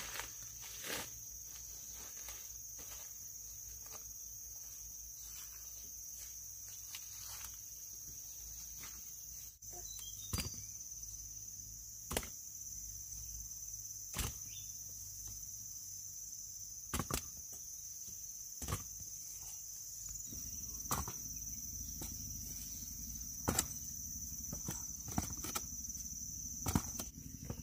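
Insects shrilling in one steady high-pitched drone, with scattered sharp clicks and knocks from handling or footsteps.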